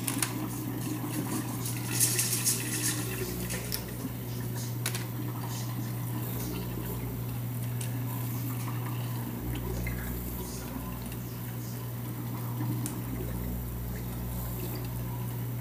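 Water sounds over a steady low hum, with a few light clicks and clatters about two seconds in.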